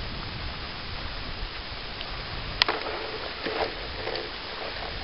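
Steady wind on the microphone and a gentle wash of water at the shoreline, with one sharp click about halfway through.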